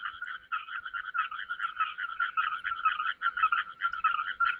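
A dense chorus of frogs calling from the flooded field: an unbroken run of rapid, overlapping pulsed notes.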